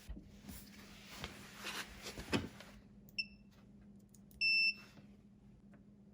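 Multimeter continuity beeper: a brief chirp about three seconds in, then a steady beep of about half a second, while the air compressor's power switch is tested and found faulty. Before the beeps, rustling and clicking from handling the probes and wires.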